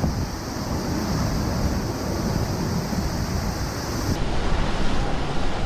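NASA launch pad water deluge system releasing a torrent of water into the flame trench: a steady rush of pouring, crashing water. The sound's character changes abruptly about four seconds in.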